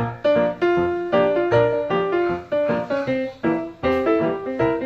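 Background piano music: a melody of quickly struck notes, each ringing and fading before the next.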